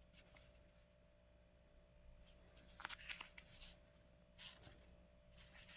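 Faint rustling and light handling noises, a few short scrapes about three seconds in and again near the end, as a pair of socks and their packaging are handled.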